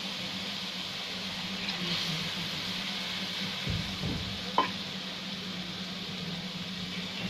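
Onion-and-spice masala in hot oil, with a little water just added, sizzling steadily in a metal pan over a steady low hum. A single sharp click comes about four and a half seconds in.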